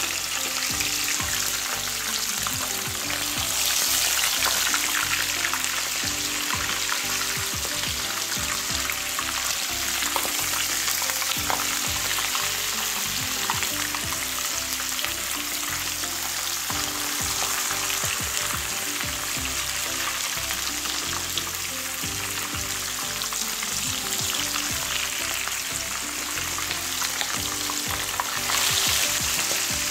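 Lobster tails frying in hot oil in a frying pan: a steady, crackling sizzle. It swells louder about four seconds in, and again near the end as another tail is lowered into the oil.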